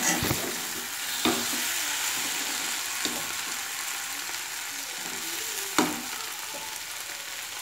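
Prawn, onion and tomato curry sizzling in a kadai on a gas flame while a spatula stirs it, with a few knocks of the spatula against the pan; the loudest knock comes near six seconds in.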